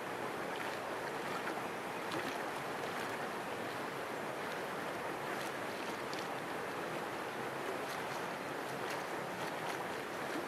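Steady, even outdoor background noise with a few faint ticks.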